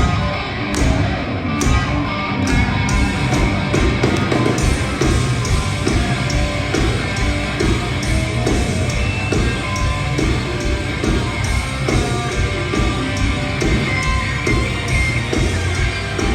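Live heavy rock band playing: distorted electric guitars, bass and pounding drums, with some shouted vocals, heard through a crowd recording.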